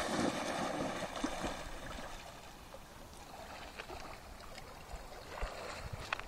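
Water splashing as a black Doberman cross bounds into a lake, loudest in the first second or so, then softer sloshing and lapping as the dogs swim.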